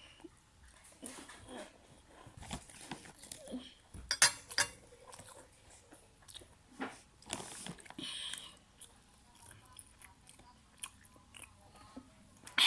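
Close-up eating sounds: a person biting and chewing, with scattered sharp crunches, the loudest about four seconds in.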